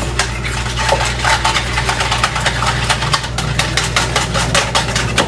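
Raw eggs being beaten in a plastic mixing bowl with a hand-held utensil: rapid, uneven clicking and tapping, several strokes a second, over a steady low hum.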